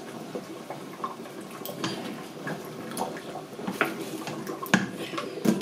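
Spoon stirring thick tomato stew in a stainless steel pot: wet stirring sounds with irregular light clicks of the spoon against the pot, one louder knock near the end.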